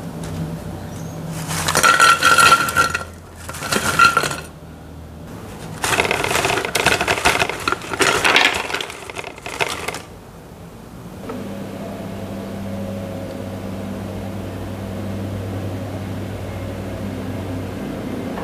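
Fried kerupuk ciwang crackers clattering and scraping in several bursts through the first ten seconds, with a short ringing tone in two of them. After that there is a steady low hum.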